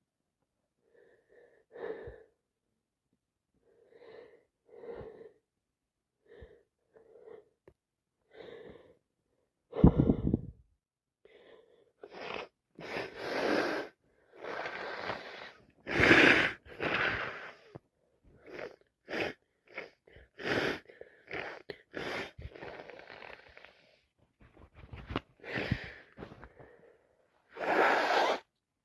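A woman with a heavy cold and sinusitis sniffing repeatedly through a congested nose, with a sudden loud sneeze about ten seconds in. After it comes a long run of louder, harsher sniffs and nasal blasts.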